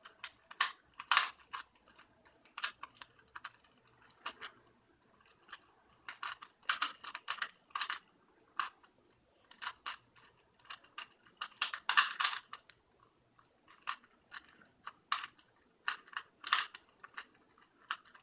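Rubik's cube being turned rapidly in a speedsolve: bursts of quick plastic clicking and clacking as the layers snap round, broken by brief pauses between move sequences.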